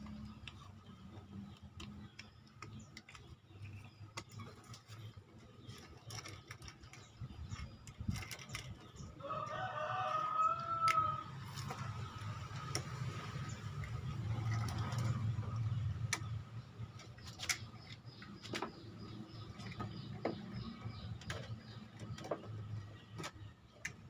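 A rooster crows once, about ten seconds in, a single drawn-out call lasting about two seconds. Scattered light clicks and taps come from the plastic drain-valve parts, rubber seal and spring of a washing machine being handled and fitted.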